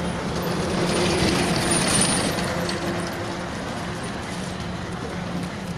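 Vehicle engine hum with road noise, steady and low, swelling a little between one and two seconds in.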